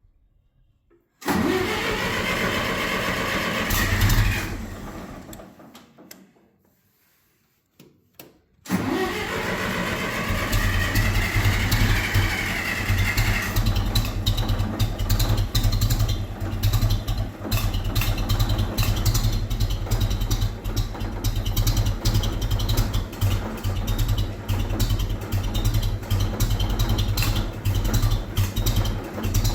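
John Deere tractor engine being started: the starter cranks for about three seconds, the engine fires briefly and dies away. After a pause of a few seconds it is cranked again, catches, and settles into steady running.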